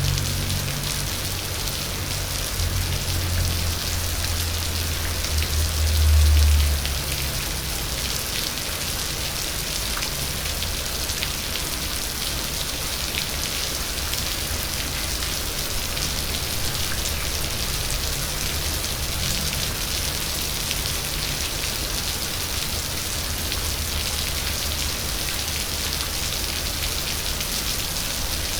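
Steady rain falling, a dense even hiss with scattered individual drop ticks. A low rumble swells underneath during the first few seconds, loudest about six seconds in, then fades.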